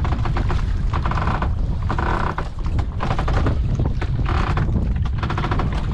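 Steady low rumble of wind buffeting the microphone and a boat running at sea, with brief faint tones rising over it every second or so.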